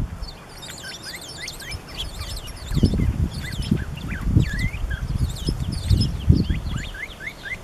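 Many short, high chirps and quick downward-sliding call notes from small birds, American tree sparrows among them, mixed with the calls of an unidentified bird whose notes sound partly like a northern cardinal's. Bursts of low rumbling noise come and go from about three seconds in.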